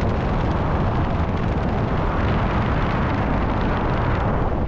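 Air rushing over the microphone of a skydiver's camera during a descent under an open parachute: a steady, loud rushing with a heavy low rumble.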